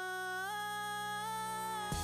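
Background music: a long held note with its overtones, stepping up in pitch about half a second in, and the beat coming back in at the end.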